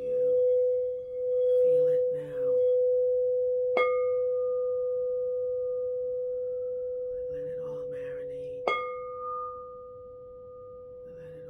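Crystal singing bowl sounding a steady low tone that swells and fades in slow pulses at first, then rings on and slowly fades. A higher ringing tone is struck about four seconds in and again near nine seconds, each ringing on over the low tone.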